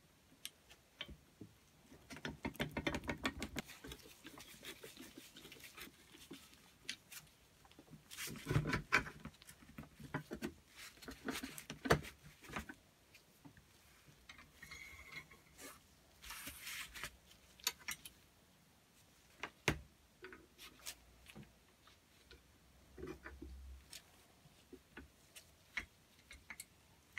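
Scattered small clicks, taps and scrapes of metal parts being handled and fitted as a vintage Kismet double-barrel foot pump is reassembled, with the rustle of gloved hands. The clicks crowd together in a couple of busy spells, with quieter gaps between.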